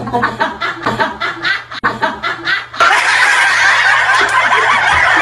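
Several people laughing hard: quick rhythmic chuckles at first, then a sudden swell into loud, continuous group laughter a little under three seconds in.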